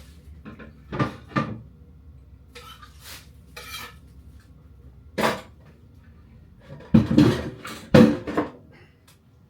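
Kitchen dishes and utensils being handled: a series of separate clinks and knocks of crockery and cutlery, the loudest cluster about seven to eight seconds in.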